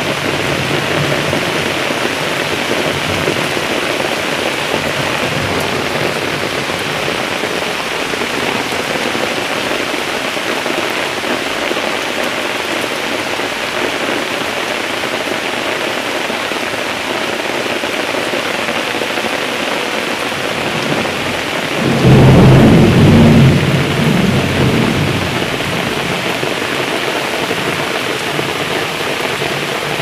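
Steady rain falling, with a loud thunderclap about three quarters of the way through that rumbles low and dies away over a few seconds.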